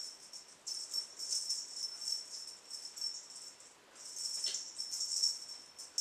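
A dangling cat toy jingling in quick clusters as a kitten bats and tugs at it, with a short lull a little past halfway.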